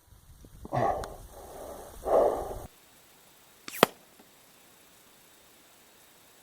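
Gunfire heard from downrange, beside the targets: two duller half-second bursts in the first three seconds, then a single sharp crack of a round arriving near four seconds in.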